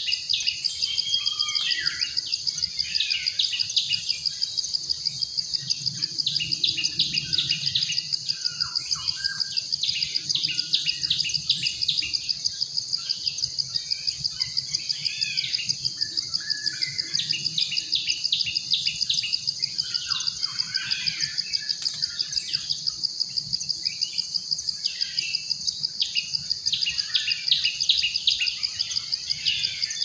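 A high, steady insect buzz that pulses rapidly and evenly, with many birds chirping and calling over it throughout.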